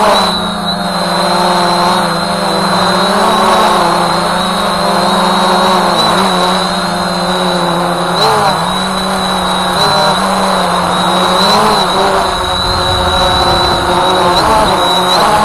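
Voyager 3 drone's electric motors and propellers buzzing steadily in flight, with a constant high whine above. The pitch dips and recovers briefly several times as the throttle changes.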